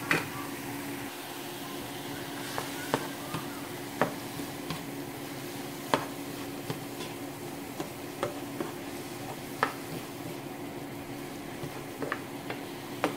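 A plastic spoon stirring a wet spice sauce in a plate, with irregular sharp clicks as it knocks against the plate, over a steady low hum.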